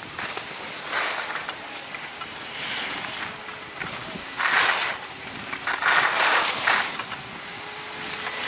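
Skis carving on packed, groomed snow: repeated scraping swishes, one with each turn, the loudest about halfway through, with wind noise on the microphone.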